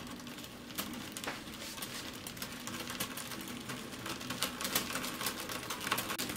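Irregular crackling and ticking from a pot heaped with fresh spinach heating on the hob, the clicks coming thicker toward the end.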